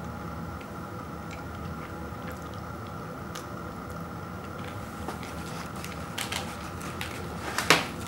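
Sharp crackles and clicks of a cardboard granola-bar box and its wrappers being handled, building from about halfway through to one loud crackle near the end as the box is picked up, over a steady low room hum.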